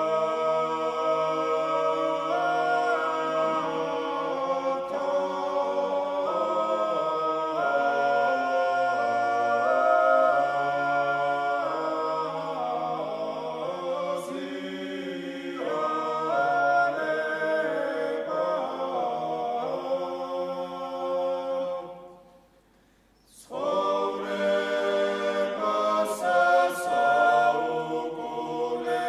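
Male choir singing Georgian church chant a cappella in several voice parts, with a low sustained bass under moving upper voices. The singing stops for about a second and a half after roughly twenty-two seconds, then a new phrase begins.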